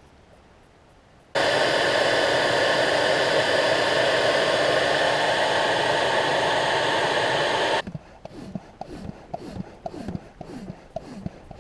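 A cordless XR brushless blower switches on about a second in and runs steadily for about six seconds, pushing air into an inflatable kayak, then cuts off sharply. A hand pump follows with quick strokes, about three a second, topping the kayak off to 2 psi.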